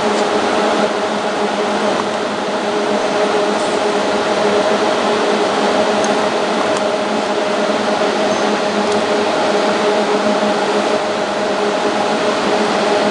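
Three-head flat labelling machine with a suction (vacuum) conveyor running: a steady mechanical whir with a constant two-note hum.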